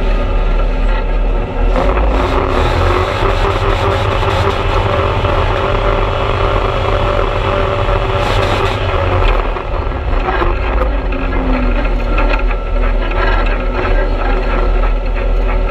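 Engine of an off-road vehicle running as it drives a rough dirt trail, with clattering knocks and rattles over the uneven ground. The engine is louder for several seconds, then eases off.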